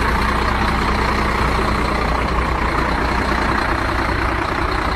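Tanker semi-truck driving along a highway: a steady low engine drone under even tyre and road noise.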